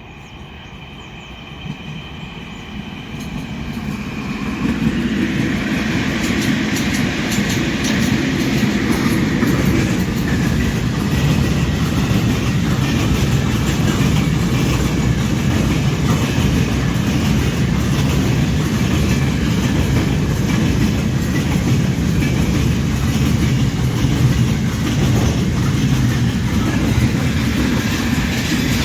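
4ES5K "Ermak" electric locomotive hauling a freight train, growing louder over the first five seconds as it comes up, then the wagons rolling past with a steady heavy rumble and rapid clicking of wheels over the rails. A faint high wheel squeal sounds in the first few seconds.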